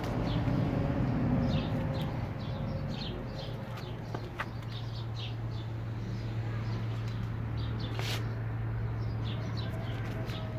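Fantail pigeons cooing low in the first couple of seconds, while small birds chirp in short high calls over and over. A steady low hum runs underneath.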